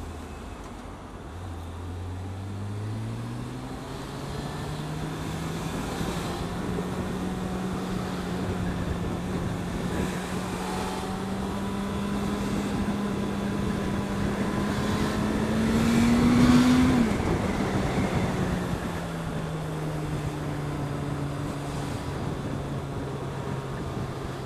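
Suzuki Bandit 650's inline-four engine under way, its pitch climbing as the bike accelerates over the first few seconds and then holding steady, over a rush of wind and road noise. About sixteen seconds in the revs climb higher and the engine is at its loudest, then the pitch drops back.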